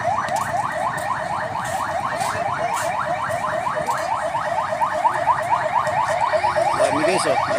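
Electronic alarm, like a car alarm, sounding a fast run of short rising chirps about six or seven times a second.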